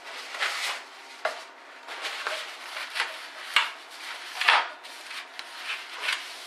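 Paper towel rubbed briskly back and forth across a metal baking tray to mop up spilt chocolate mixture: a run of scrubbing swishes, the loudest about four and a half seconds in, with a couple of sharp knocks along the way.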